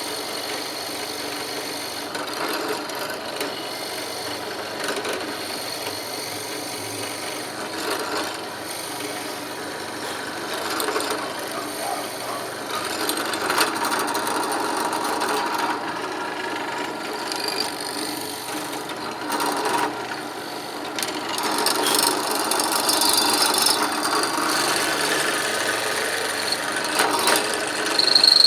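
Electric drill fitted with a square-hole chisel adapter cutting into peroba hardwood. The noise swells and dips as the bit is pressed in, and is louder over the last several seconds.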